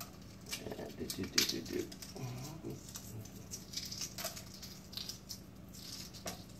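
Shell of a hot hardboiled egg crackling as it is peeled by hand: irregular small clicks and snaps of breaking eggshell.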